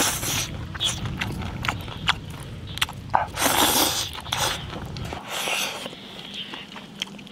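Close-up eating sounds: chopsticks clicking and scraping against a bowl, with bursts of slurping and chewing as saucy rice with shredded pork is shovelled into the mouth, three longer bursts among many short clicks.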